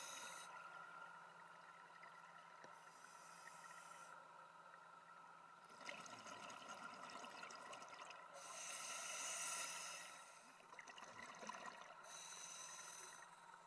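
Scuba diver breathing through a regulator underwater: three hissing inhalations, each followed by a rush of exhaled bubbles.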